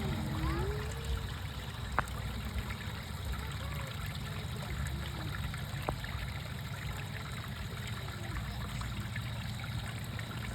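A homemade garden water fountain running, its water trickling and splashing steadily, with two short clicks about two and six seconds in.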